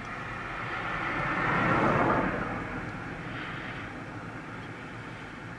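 Engine noise of something passing, swelling to its loudest about two seconds in and then slowly fading away.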